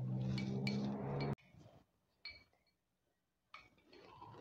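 Metal spoon clinking against a glass canning jar while scooping out flan: two quick clinks in the first second, then one more about two seconds in. A low steady hum sits under the first second and cuts off abruptly.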